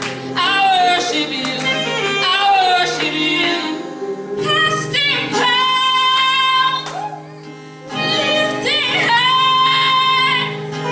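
A woman singing a worship song and accompanying herself on acoustic guitar, with a short break in the singing about seven seconds in.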